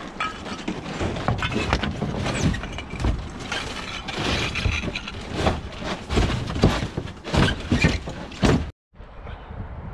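Roof being stripped by hand: boards and timber ripped and broken away from the rafters, a rapid run of cracks, bangs and clattering knocks. Near the end it cuts off abruptly, and a quieter, steady outdoor background follows.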